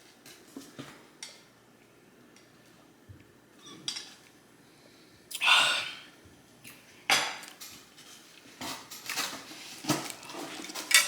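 Close-miked eating sounds: utensils clicking and knocking against a bowl and plate, with about half a dozen separate sharp sounds spread through the stretch. The loudest is a longer eating noise about halfway through.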